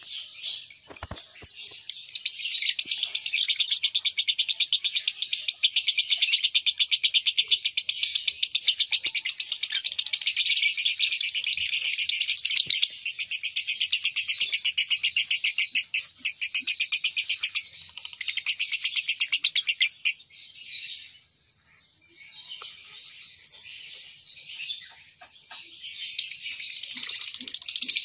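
Caged lovebirds chattering: a long, unbroken run of rapid, high-pitched chirps that drops away about 20 seconds in, then comes back in shorter, patchier spells.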